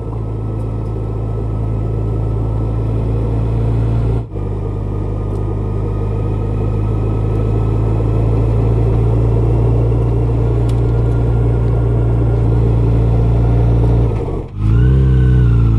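Yamaha FJR1300 inline-four engine running steadily at cruising speed, heard from the rider's seat and slowly growing louder. The sound drops out briefly twice, about four seconds in and near the end. After the second drop the engine note rises and wavers.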